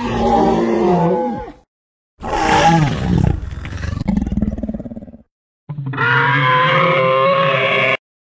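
Recorded dinosaur roars, three in a row separated by short silent gaps: long, growling pitched calls whose pitch bends and falls.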